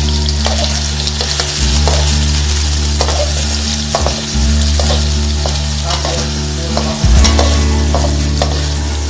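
Paneer cubes sizzling in hot oil in a metal kadai, with a slotted metal spatula scraping and tapping the pan at irregular intervals, about once or twice a second. A steady low hum runs underneath, dropping out briefly a few times.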